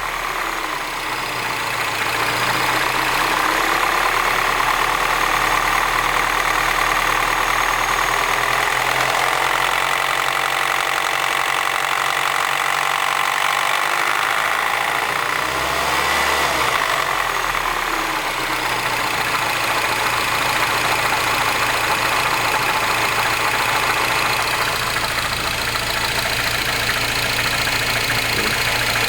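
Mini Cooper S R56 1.6-litre turbocharged four-cylinder engine idling cold, with the rattle the owner records as a cold-start problem.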